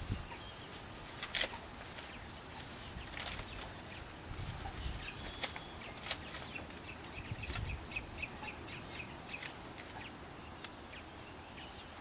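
Wetland outdoor ambience: gusts of wind buffeting the microphone, scattered sharp clicks and crackles, and a bird calling a quick run of short high notes through the middle, over a faint steady high whine.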